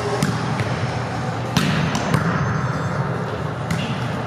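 Volleyball rally in a gym: several sharp slaps of hands and forearms on the ball, the two loudest about a second and a half and two seconds in, over a steady hall din.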